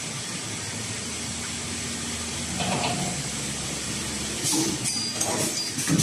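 Automatic wire ring coiling and butt welding machine running: a steady hum, then from about four and a half seconds in, a run of sharp clacks and hisses.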